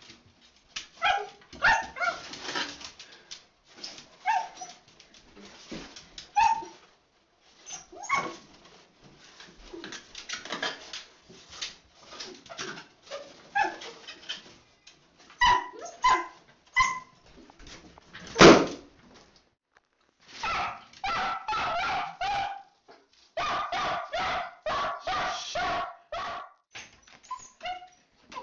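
Long-haired dachshund barking harshly and repeatedly in excitement at balloons, short sharp barks in quick runs. About two-thirds through there is one loud sharp bang, the loudest sound, followed by a stretch of longer held notes with short gaps.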